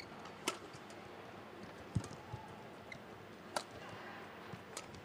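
Badminton rally: sharp clicks of rackets striking the shuttlecock, the clearest about half a second in and again about three and a half seconds in, with a low thud near two seconds, over a faint steady arena hum.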